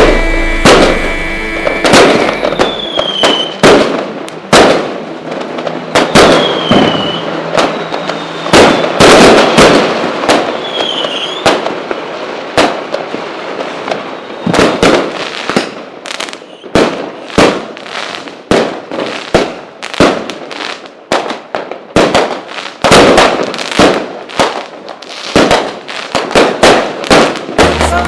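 Firecrackers and fireworks going off in rapid, irregular bangs, with a few short falling whistles in the first dozen seconds.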